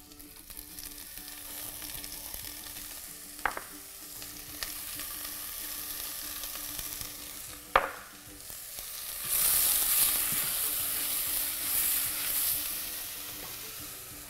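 Sliced red onions, leek and spring onion whites sizzling in hot oil in a stainless steel pot, with a few sharp clicks along the way. The sizzle grows louder about nine seconds in and eases off again near the end.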